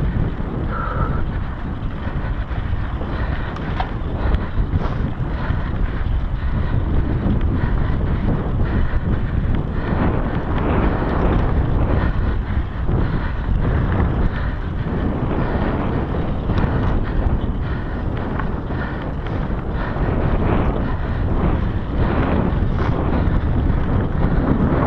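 Wind buffeting a GoPro's microphone as a mountain bike rides fast along a dry dirt singletrack, with tyre noise on the dirt and frequent small knocks and rattles from the bike over bumps.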